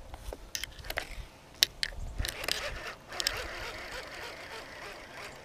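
Baitcasting fishing reel and lure handled close to the microphone: scattered sharp clicks and light rubbing scrapes.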